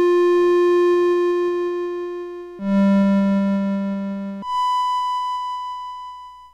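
Casio VL-1 monophonic synthesizer playing three single notes, set to its longest release: a middle note, then a lower one about two and a half seconds in, then a high one near the end. Each note starts sharply, holds, then fades away in small audible steps instead of smoothly.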